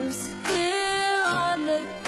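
Pop song with a female lead voice holding long sung notes over the backing track, slowed to half speed.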